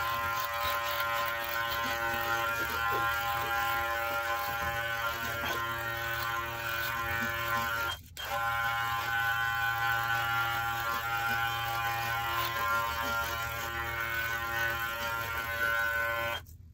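X Master cordless hair clipper running with a steady electric buzz as it shaves a head of short stubble. The buzz breaks off briefly about eight seconds in.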